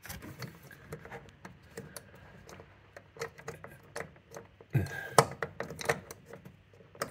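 Scattered small plastic clicks and taps of fingers pushing and twisting the air-brake connector of a boiler's integral filling loop, trying to lock it into position, with a louder cluster of clicks about five seconds in.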